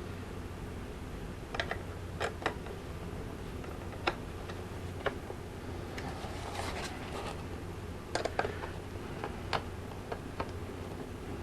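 Small screws being put in and tightened to mount a new speaker in its frame: scattered, irregular clicks and ticks over a steady low hum.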